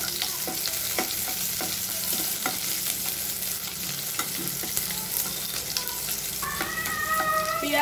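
Chopped onion sizzling in hot mustard oil as it is stir-fried, with a spatula scraping and tapping against the pan every second or so.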